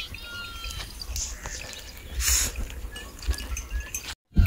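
Faint, distant bleating of a grazing flock of sheep and goats, a few scattered calls over a steady low rumble. The sound cuts off abruptly near the end.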